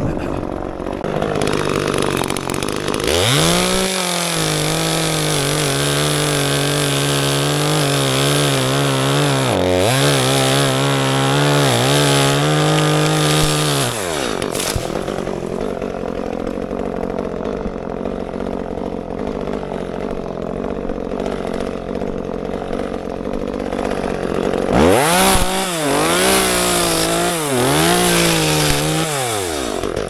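Two-stroke chainsaw cutting wood: it revs up a few seconds in and runs at full throttle for about eleven seconds with two brief dips, drops back to idle, then revs again in a few short surges near the end before settling back to idle.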